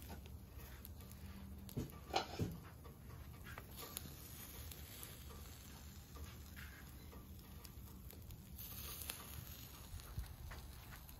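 Chicken kebab skewers sizzling faintly over a charcoal grill, with a light irregular crackle and a few sharp clicks about two seconds in.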